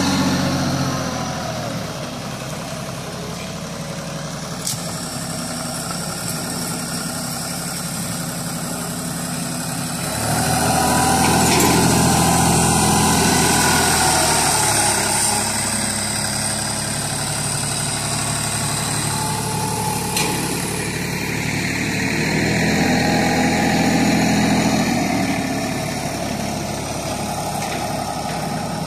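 TYM compact tractor's diesel engine running as the tractor is driven, getting louder for a few seconds about ten seconds in and again near the end.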